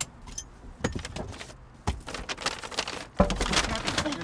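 Clicks, knocks and rustling as things are handled in a car's front seat, with a heavy thump about three seconds in.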